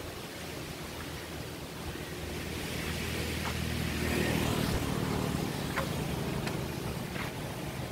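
A motor vehicle passing: a low engine hum swells to a peak about halfway through, then fades. A few short high chirps sound over it in the second half.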